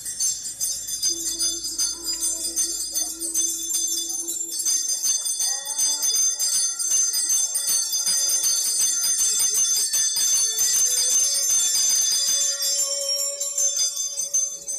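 Small hand bells shaken continuously in a rapid, bright jingle, as rung by altar servers walking in a Resurrection procession.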